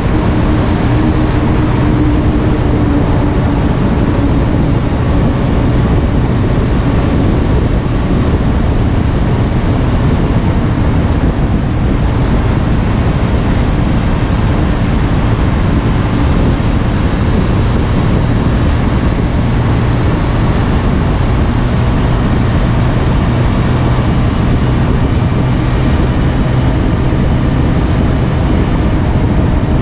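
Steady wind noise on an action camera's microphone over the even hum of a KTM Duke 125's single-cylinder engine cruising at a constant speed.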